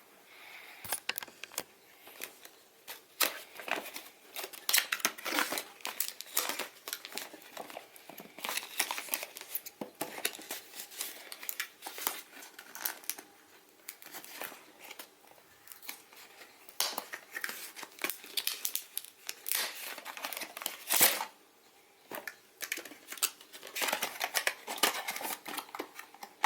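A toy drone's retail box and packaging being handled and opened by hand: irregular crinkling, rustling and tearing, with a brief pause about three quarters of the way through.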